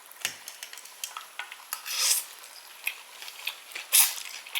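Eating utensils clicking and scraping against a dish as food is gathered up, with two louder scrapes about two seconds in and near the end.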